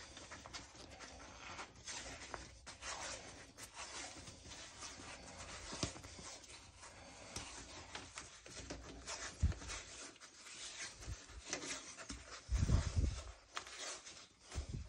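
Black insulation tape unwinding off the roll and being wrapped and rubbed over the foam insulation of an air-conditioner copper pipe joint: irregular rustling and crackling strokes, with two dull low thumps in the second half.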